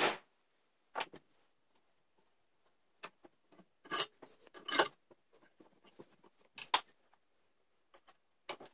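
Sharp metallic clinks and clanks, spread irregularly, as a steel bench vise is worked and a thin perforated steel bracket is clamped and handled in its jaws; the loudest come about four seconds in and again at about six and a half seconds.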